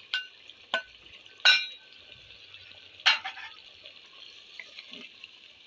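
A metal spoon clinks sharply against cookware four times, the third the loudest, over the steady sizzle of beef frying in a clay handi.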